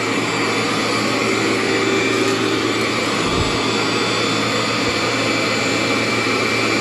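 Cleartrak/Workhorse upright vacuum cleaner running steadily as it is pushed over the floor, a constant motor hum with a steady whine, its brush roll and belt newly replaced.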